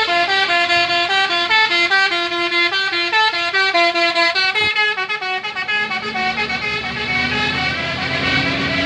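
Bus 'telolet basuri' musical horn playing a quick tune of short stepped notes, about four or five a second. About five and a half seconds in the tune stops and a steadier drone, rising slowly in pitch, takes over.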